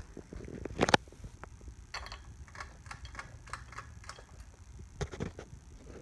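Hunter Brighton ceiling fan running on the floor with a low hum, over which come a series of sharp clicks and knocks, the loudest about a second in and again about five seconds in.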